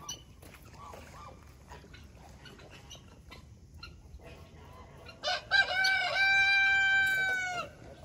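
A rooster crowing once, starting about five seconds in: a few short choppy notes, then one long held note that drops off at the end.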